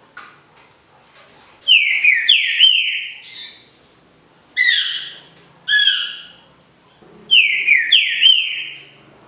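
Green-winged saltator (trinca-ferro) singing its smooth 'canto liso' Paraná song type, with no low 'boi' note. It gives four phrases of loud, downward-slurred whistles: one about a second and a half in, two short ones around five and six seconds, and a longer one near the end.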